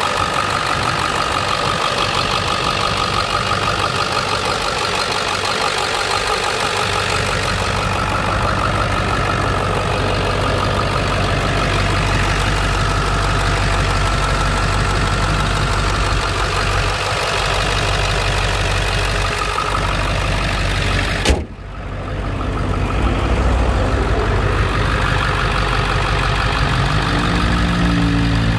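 The 7.3-litre Power Stroke V8 turbo diesel of a 2002 Ford Excursion idling steadily, with a single sharp click about two-thirds of the way through.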